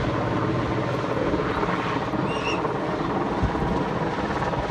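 Helicopter flying close by: a steady, dense rotor and turbine-engine noise.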